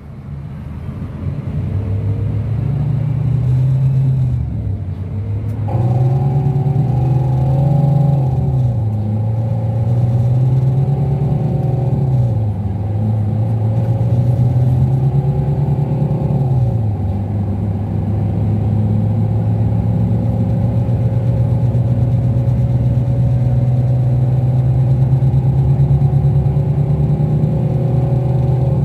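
Scania DC13 five-cylinder diesel of a rear-engined Scania K360 coach, heard from inside the coach, pulling away through the gears of its Opticruise automated gearbox: the engine note climbs and drops back at each upshift, four times, then holds a steady pitch at cruise. A higher whine joins about six seconds in.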